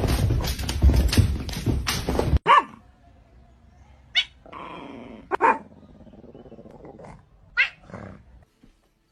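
A dog growling and barking: a loud, rough stretch at the start, then several short separate barks.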